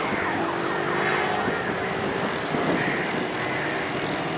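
Steady mechanical noise of a running vehicle, with a faint held hum underneath.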